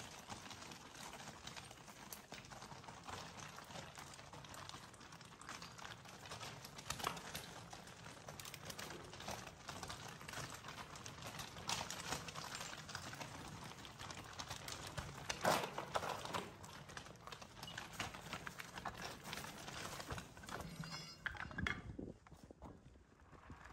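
Dense, irregular crunching and clicking of loose gravel being travelled over, with a louder knock about fifteen seconds in. It dies away near the end.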